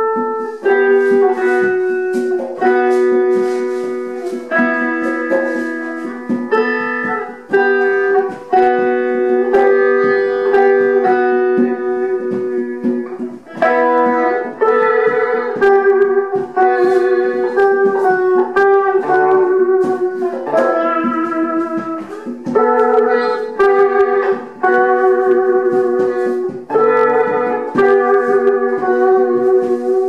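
Improvised solo guitar music: plucked notes struck one after another and left ringing, so they overlap into slowly shifting chords.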